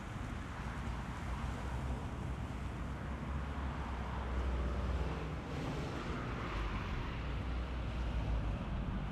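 Wind buffeting the action camera's microphone: a low rumble over a steady rushing, swelling about four to six seconds in.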